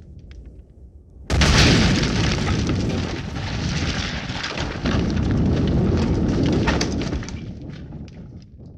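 Explosion sound effect: a sudden loud blast about a second in, followed by a long rumbling tail full of crackles that swells again midway and fades away near the end. The dying tail of a previous blast is heard before it.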